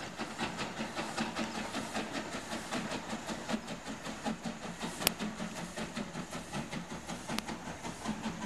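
LMS 3F 'Jinty' 0-6-0T steam tank engine 47279 working past with a train of coaches: a steady rhythmic beat of exhaust and rolling wheels with hiss, and two sharp clicks about five and seven seconds in.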